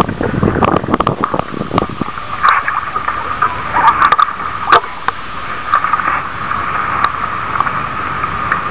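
Water sloshing and gurgling, with gusts of wind buffeting the microphone for the first two seconds or so.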